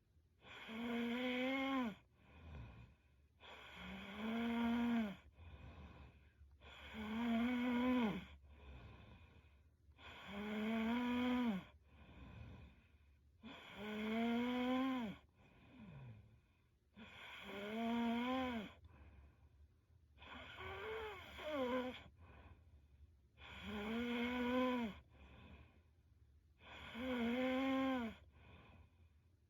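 A young woman snoring in her sleep: a pitched, wheezy snore about every three seconds, nine in all, each lasting a second or so and rising slightly in pitch before dropping, with fainter breaths between.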